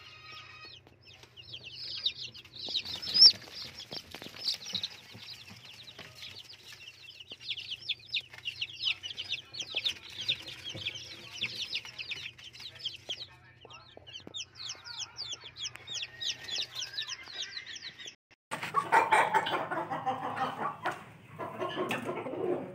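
A crowd of young chicks peeping without pause, a dense chorus of short, high, falling cheeps. About eighteen seconds in it changes to the lower, louder clucking of adult Aseel chickens.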